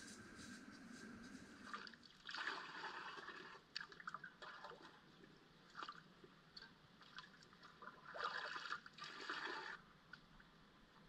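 Creek water splashing and trickling as a collapsible water bag is dipped and filled, in two louder spells about two seconds in and about eight seconds in.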